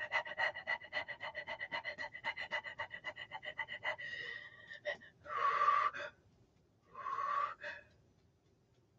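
A woman panting rapidly, about five quick breaths a second, for about four seconds, then two slower, deeper breaths.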